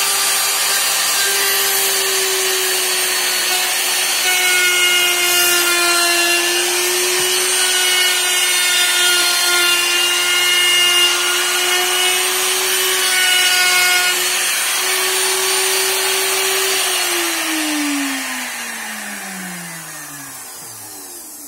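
Handheld electric wood router running on a circle-cutting jig as its bit cuts a round disc from a wooden board, with a steady motor whine. A little after three-quarters of the way through it is switched off, and the whine falls steadily in pitch as the motor spins down.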